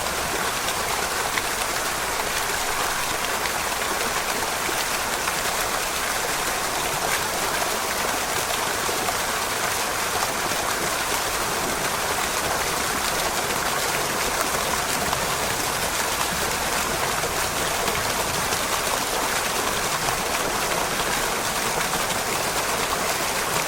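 Fountain water splashing and spattering steadily into a shallow basin, recorded close up, a dense even hiss of falling jets with little gurgle.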